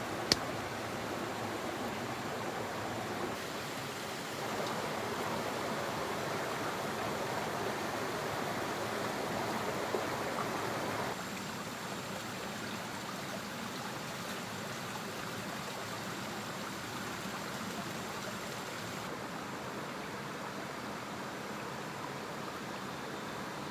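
Stream water running, a steady rushing that gets louder a few seconds in and drops back about halfway through. There is a sharp click just after the start.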